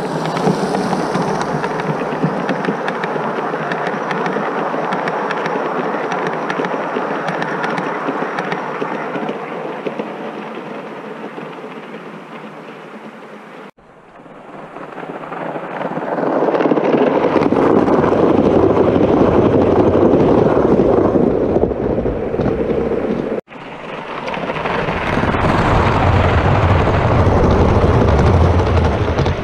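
Gauge 1 model train running on garden track close by: a steady rumble and rattle of wheels on rail. It fades away over the first dozen seconds, then builds up loud again as coaches pass close, twice, with sudden cuts between.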